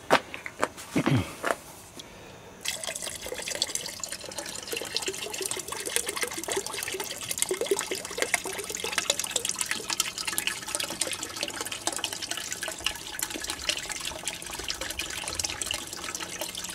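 Liquid coolant additive pouring from a plastic bottle into a bucket of diluted ethylene-glycol antifreeze, a steady trickling splash that starts about three seconds in. A few short clicks come before the pour begins.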